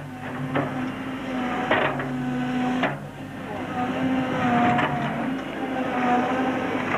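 Hydraulic excavator running, its diesel engine and hydraulics holding a steady tone that shifts slightly in pitch, while the toothed bucket digs into stony soil. Several sharp knocks as the bucket strikes stones and rubble.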